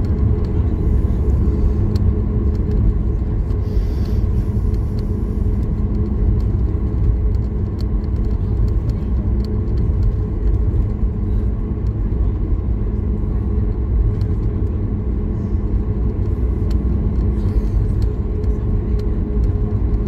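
Boeing 737 MAX 8 taxiing, heard from inside the cabin: its CFM LEAP-1B turbofans at taxi power give a steady low rumble with a constant hum, and a few faint clicks sound over it.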